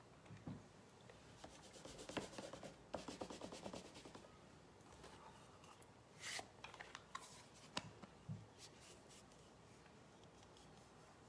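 Faint hand-crafting sounds on paper: a quick run of rubbing strokes for about two seconds, then a few light taps and clicks.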